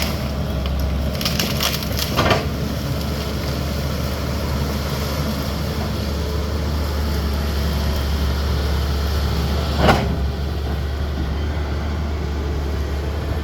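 CAT 320D excavator's diesel engine running steadily while wood cracks and splinters, most likely trees or brush being broken. There is a run of snaps about one to two seconds in and one loud crack about three quarters of the way through.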